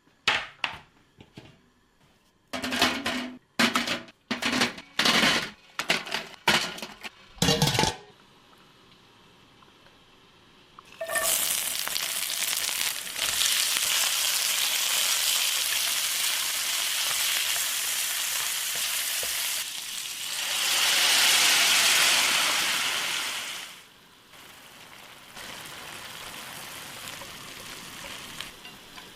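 A quick run of sharp knocks and clatter for several seconds. Then, after a short lull, food hits a hot pan and sizzles loudly. The sizzle swells louder for a few seconds before dropping to a quieter sizzle.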